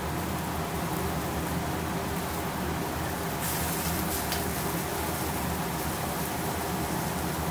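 Steady mechanical hum of kitchen equipment, with a brief louder hiss about three and a half seconds in.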